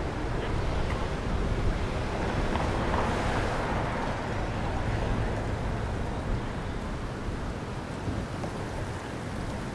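Surf washing in on a beach, with wind buffeting the microphone; a wave swells and breaks about three seconds in.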